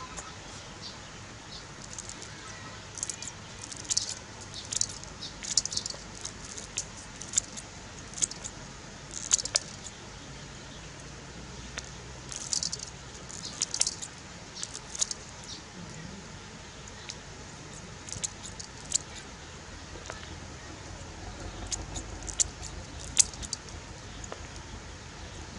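Scissors snipping fresh red chilies over a wok: a run of short, sharp snips in irregular clusters, with small pieces dropping into the pan.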